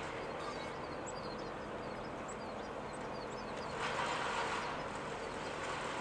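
Water running steadily from an outdoor hose faucet and splashing below, left running so hot water from the solar tank comes through; it gets briefly louder about four seconds in.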